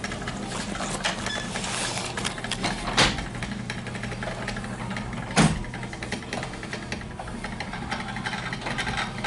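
LiftMaster 8500 wall-mount jackshaft garage door opener running, its motor turning the torsion bar with a steady hum as it moves the garage door. Two sharp knocks from the door and its hardware stand out, about 3 s and 5.5 s in.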